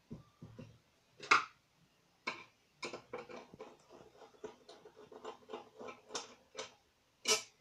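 Screwdriver turning a small screw out of the grille of a solid brass bulkhead light. A run of short, quick clicks and scrapes, with a louder knock about a second in and another near the end as the fixture is handled.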